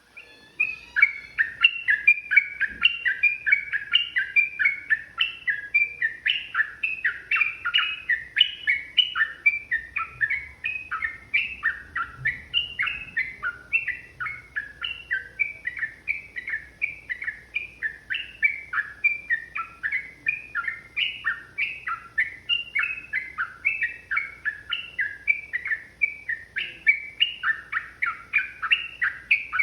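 Yellow-vented bulbul singing a long, unbroken run of quick chattering notes, about three or four a second, starting just after a brief silence.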